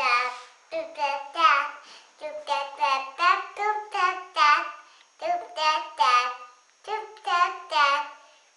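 A toddler girl singing a song to herself in a high voice, in short phrases with brief pauses between them.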